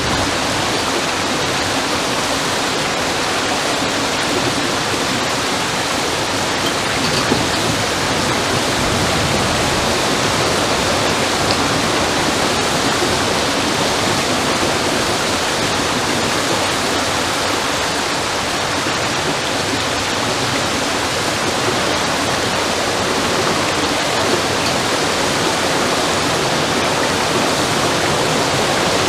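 Water rushing steadily through a small weir into a mill stream, a dense even splashing with no rhythm or tone.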